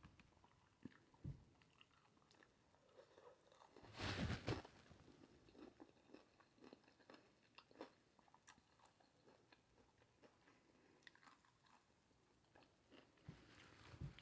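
Faint close-up eating sounds: chewing with small wet mouth clicks, and one louder crunchy bite about four seconds in.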